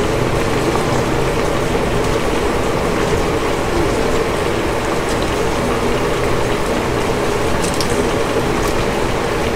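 Steady bubbling and hum of chicken simmering in a gochujang sauce in a pan on the stove, with a few light taps as cabbage pieces are dropped in.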